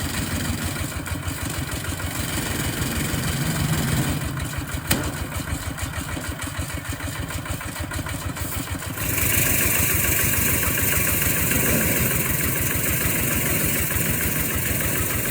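Engine of a rice threshing machine running steadily with a fast pulsing beat; about nine seconds in it gets louder as a harsher rushing noise joins it.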